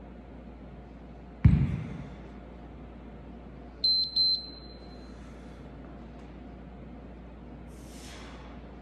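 A heavy thud on the gym floor about a second and a half in, then two short electronic beeps from a workout interval timer close together a couple of seconds later.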